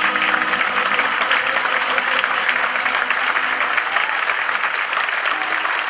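Audience applauding, a dense steady clapping that fills the hall. The last held note of the music dies away within the first second.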